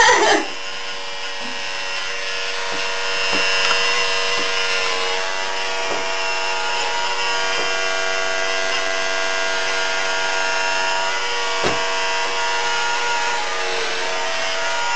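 Electric hair clippers buzzing steadily as they shave a head, the blades running through the hair.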